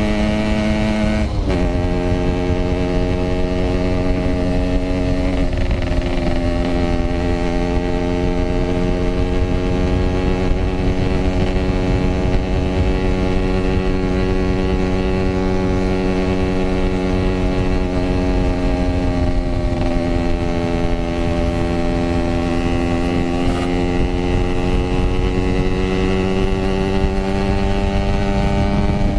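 Yamaha RX-King 135cc two-stroke single-cylinder engine running at a steady cruising pitch through an aftermarket 'packing power' exhaust. The pitch shifts briefly about a second in, again around five seconds in, and dips and slowly climbs back around twenty seconds in, over a constant rumble of wind and road.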